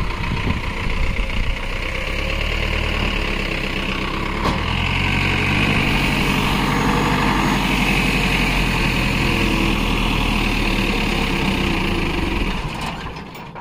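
Vehicle engine running steadily while one vehicle tows a stuck boring-rig pickup out of deep sand on a rope. It grows louder about four and a half seconds in, then dies away near the end.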